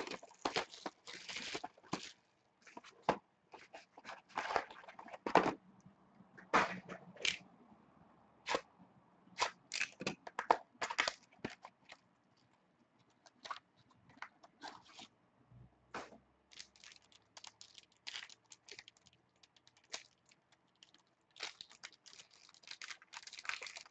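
Sealed trading card packs and cards being opened and handled on a table: scattered short crinkles, tearing, taps and scrapes, with quieter gaps between them.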